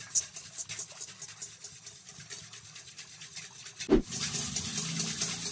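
Wire whisk beating a thin liquid mixture in a stainless steel bowl: a rapid, rhythmic scraping of the wires against the metal, strongest in the first second and then fainter. A short thump about four seconds in.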